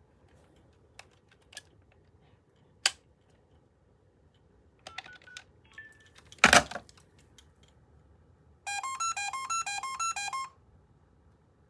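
An AT&T Trimline 210 telephone's electronic ringer plays a rapid run of stepping electronic notes for about two seconds near the end. Before it come a few light clicks and short beeps of the phone being handled and set, and a single loud clunk about halfway through.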